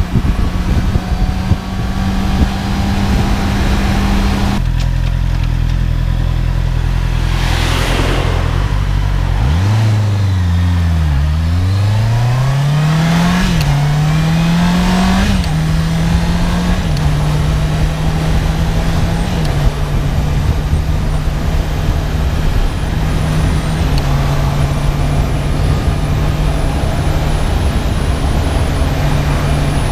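Honda CB650R inline-four engine with its stock exhaust, heard while riding. The engine note drops, dips, then climbs again around ten seconds in, with two quick rising-and-falling steps like upshifts under acceleration, before settling into a steady cruise.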